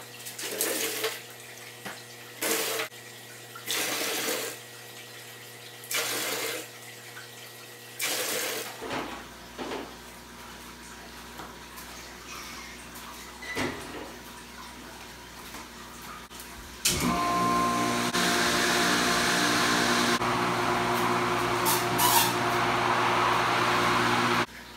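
Water running from a tap into a bucket. After a few short bursts of rushing water, the tap runs in a loud steady rush with a ringing hum for about seven seconds, then cuts off suddenly near the end.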